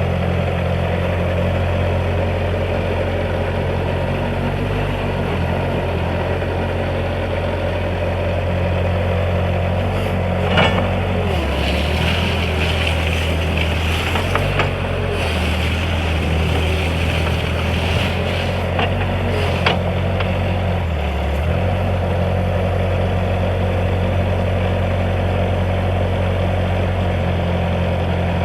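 Bobcat 773 skid steer's diesel engine running steadily. Twice its note drops lower for a few seconds, with a few short knocks along the way.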